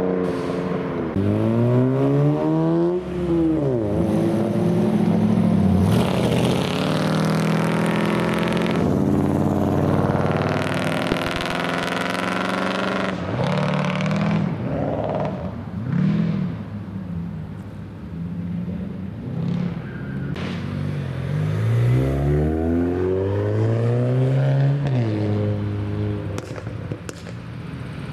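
Modified cars accelerating away one after another, engines revving. The engine pitch climbs and drops at gear changes near the start and again about three quarters through, with a loud car passing in between.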